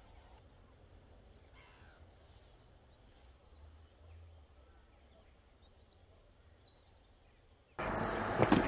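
Faint outdoor ambience with a low rumble and a few soft clicks. Near the end it switches suddenly to much louder, noisy outdoor sound with a couple of sharp knocks.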